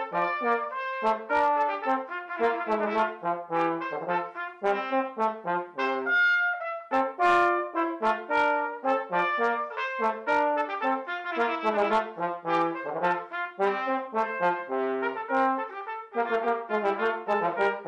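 Trumpet and trombone playing a lively duet of many short, quick notes.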